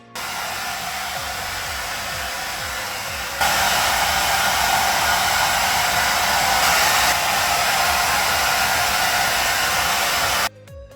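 Hair dryer blowing with a steady rushing hiss, stepping up louder about a third of the way in and switching off abruptly near the end.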